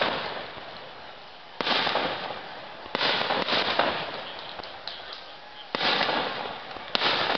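Aerial fireworks shells bursting overhead, about five sharp booms in seven seconds, each fading out over a second or more.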